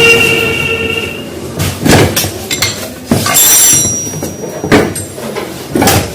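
A high-pitched metallic squeal fading out about a second in, then a string of sharp metal clanks and knocks with a brief ringing clink near the middle, as tools and motorcycle engine parts are handled during assembly.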